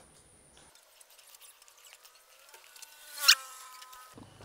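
Barred metal gate creaking as it is swung open: faint ticks and clicks, then about three seconds in a sharp click and a short squeal from the hinges.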